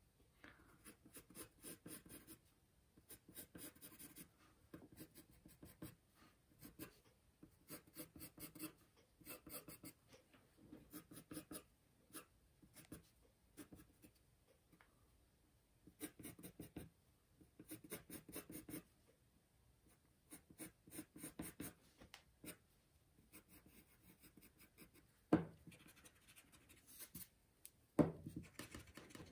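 Pencil drawing on a sheet of paper: faint scratchy strokes in short runs with pauses between them. Two louder taps come near the end.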